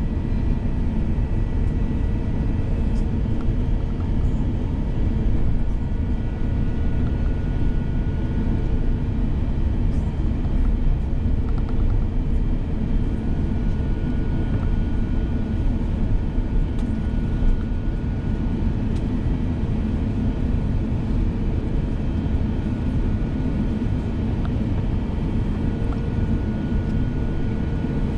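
Steady cabin rumble of an Airbus A350-1000, heard from a window seat: engine and airflow noise from its Rolls-Royce Trent XWB engines, with faint steady whining tones over the low rumble.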